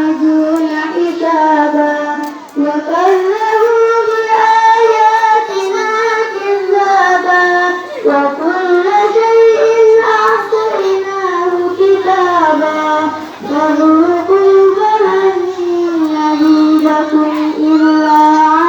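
A young girl reciting the Quran in melodic chanted style (tilawah). Her single voice holds long, ornamented, gliding phrases, with short breaks for breath about two and a half, eight and thirteen and a half seconds in.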